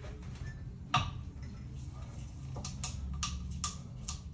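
Sharp clicks from a valve-pulling tool being worked to draw a new rubber snap-in tyre valve through the wheel rim: one louder knock about a second in, then a run of quick clicks, about three a second, from the middle on, over a low steady hum.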